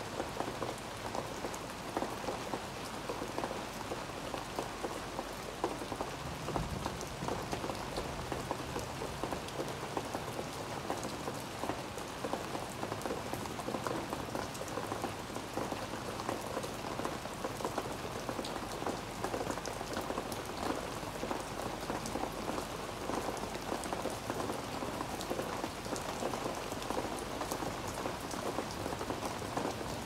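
Steady rain falling on wet brick pavers and garden leaves, with many individual drops ticking close by.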